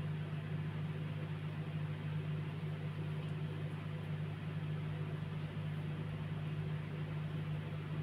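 Steady low hum with a faint even hiss behind it: background room tone.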